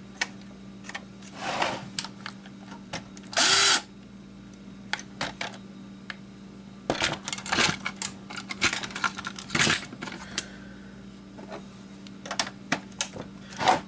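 A cordless drill-driver run in short bursts, backing screws out of a PlayStation 2 console's casing, with clicks and clatter of the plastic parts and tools being handled. The longest burst, about half a second, comes a few seconds in.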